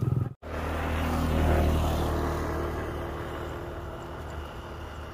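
Low engine drone of a motor vehicle, swelling to its loudest about a second and a half in and then slowly fading.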